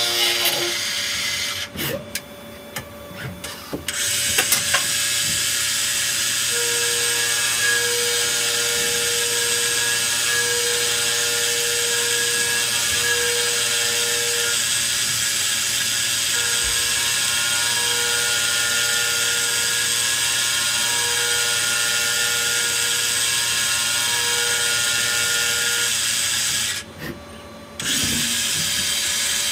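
CNC turret lathe machining a small metal part under coolant spray: a steady hiss with a low machine hum, and a whining tone that keeps stopping and starting through the middle. The noise drops briefly twice, about two seconds in and near the end.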